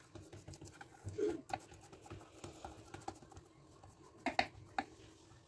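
Fingers patting and pressing a coiled ball of fenugreek paratha dough flat on a floured wooden board: soft patting with a few light, sharp taps, the loudest a quick cluster near the end.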